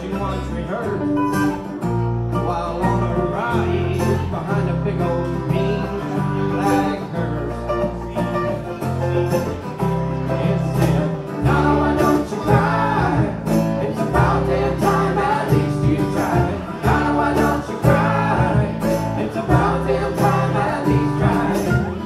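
Live band playing a country-tinged song: guitars over a bass line that changes note about every second, with a steady beat. The playing in the middle range gets busier about halfway through.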